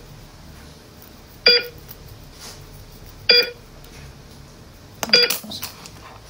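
Heart-monitor beeping: a short electronic tone about every two seconds, three times, a steady rhythm meant to signal stable vital signs. Near the end, a few clicks of handling.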